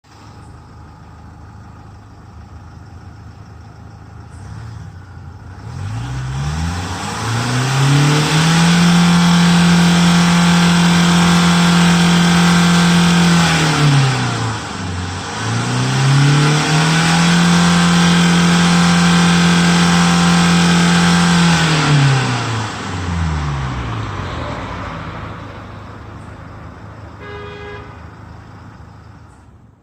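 Renault Koleos 4x4's stock exhaust with the engine idling, then revved up twice and held at high revs for about five seconds each time. Between and after the two revs the engine falls back to idle.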